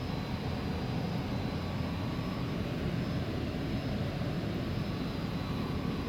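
Commercial air-handling equipment running: a steady low rush of air and machinery with faint constant high tones, without change.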